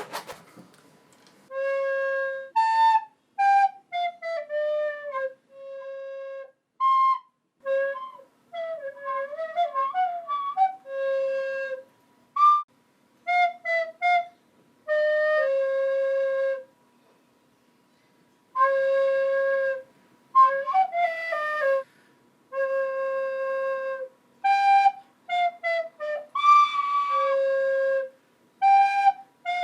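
A flute playing a simple melody one note at a time: short runs of quick notes and longer held notes, in separate phrases with pauses between them.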